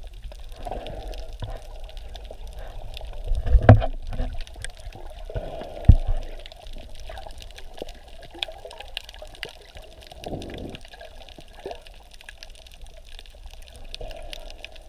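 Muffled sloshing and gurgling of water, with two heavy thumps about four and six seconds in.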